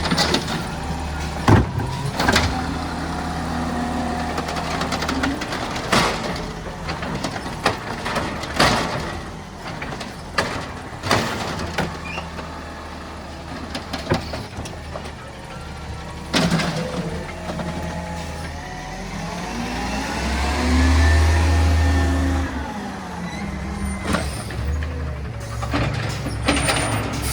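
Green-waste collection truck's diesel engine running steadily, with a series of sharp metallic clanks. About twenty seconds in the engine revs up and settles back down.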